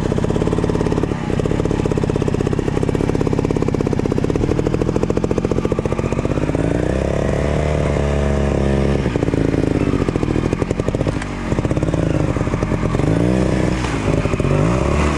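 Trials motorcycle engine running at low revs, revved up and held for a couple of seconds about halfway through, then blipped several times near the end as the rider feeds throttle over the obstacles.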